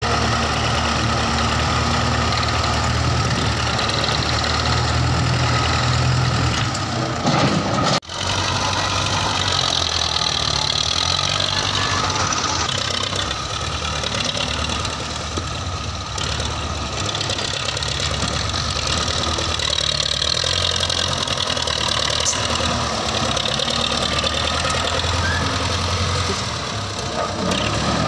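Farm tractor's diesel engine running steadily at low revs, with a brief sudden drop-out about eight seconds in.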